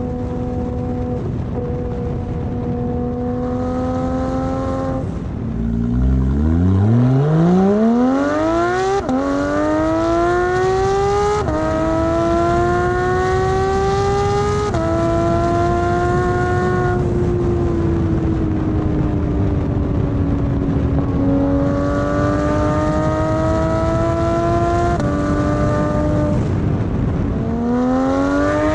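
Porsche 911 GT3 RS flat-six through a Carrera Cup race exhaust, accelerating hard: the revs climb steeply about five seconds in, with three quick upshifts where the pitch drops each time. It then settles to a steady cruise and eases off before pulling up through the gears again near the end.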